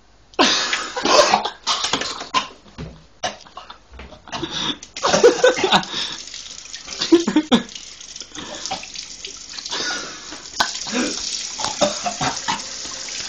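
A kitchen tap runs into the sink, starting suddenly about half a second in, while a person coughs and splutters over it, choking on a mouthful of dry ground cinnamon.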